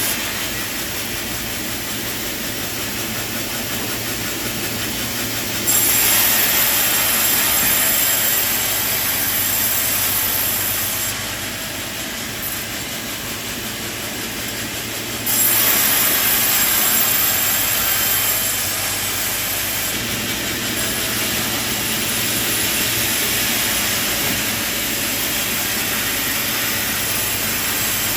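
Sawmill machinery running with a steady mechanical noise and a hiss. It gets suddenly louder and brighter about six seconds in, drops back about halfway through, and jumps up again a few seconds later.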